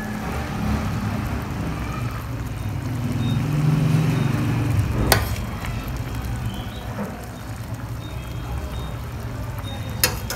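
A metal spoon scoops squid adobo and its thick ink sauce out of a stainless steel pot, with sauce dribbling onto a plate. The spoon strikes with a sharp clink about five seconds in and again near the end, over a steady low rumble.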